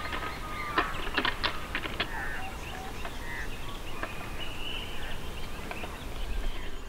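Wild birds calling: quick sharp chirps and short whistled notes, some sliding down in pitch, busiest in the first two seconds and sparser after, over a low rumble.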